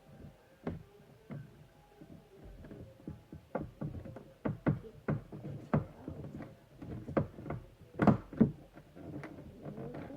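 Irregular clicks, taps and knocks of cardboard and plastic packaging being handled while a boxed vinyl figure is unboxed, busier in the second half, with the loudest knocks about eight seconds in.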